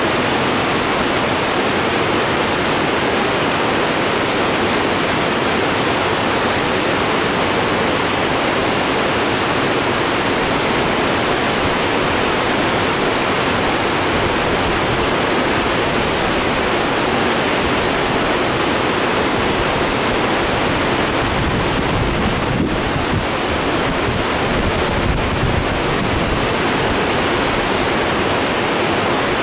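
Loud, steady rush of a rain-swollen creek in high current, pouring over a low dam and through the whitewater below it.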